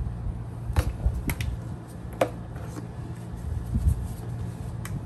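A few sharp clicks and knocks as small glass spice jars are handled and set down on a wooden table, over a steady low hum.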